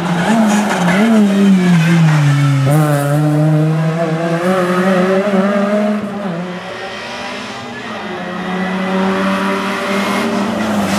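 Renault Clio rally car revving hard as it accelerates past. Its pitch drops sharply at a gear change a few seconds in, then climbs again before the sound fades. Near the end a second rally car, a Peugeot, is heard revving as it approaches.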